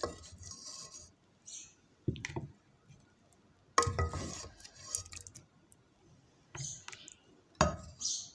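Wooden spoon stirring a thick chicken and onion curry in an aluminium pot, knocking against the pot three times, loudest about four seconds in, with wet squishing between.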